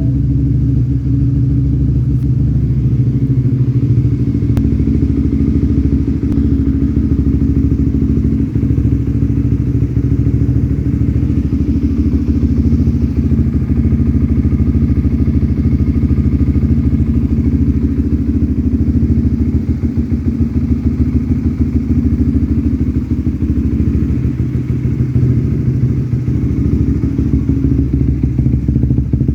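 Honda CBR150R's single-cylinder engine idling steadily while it warms up.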